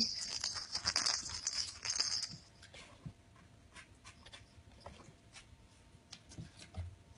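Kittens scuffling and scampering close by: a burst of scratchy rustling with clicks for about the first two and a half seconds, then light scattered pattering and ticks.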